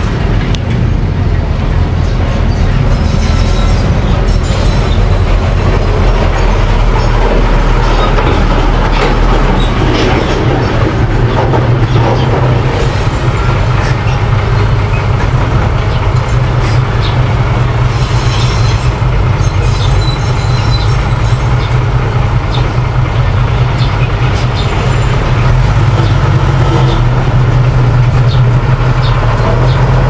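Small crawler bulldozer's diesel engine running steadily as it pushes dirt, with its steel tracks clanking now and then.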